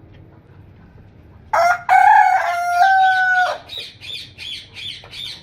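A rooster crows once, a long crow starting about a second and a half in and lasting about two seconds. It is followed by a run of short, high, evenly repeated calls, about three a second, to the end.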